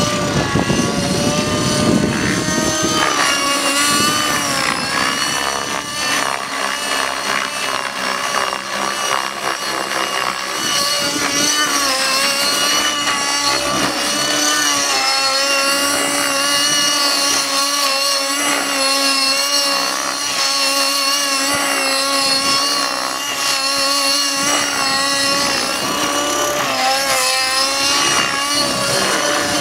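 Align T-Rex 600N nitro RC helicopter in 3D flight: its Align 50 two-stroke glow engine runs at a high, steady pitch that wavers slightly up and down as the governor holds rotor speed through the manoeuvres. The rotor blades add a rushing sound, heaviest in the first few seconds.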